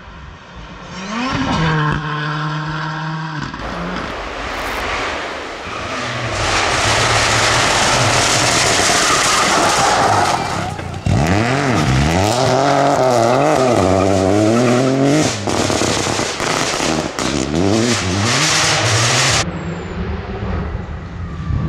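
Rally cars at full speed on a special stage, their engine notes climbing and dropping sharply through gear changes. Loud tyre and road noise comes as a car passes close. Near the end the sound cuts to a quieter, more distant engine.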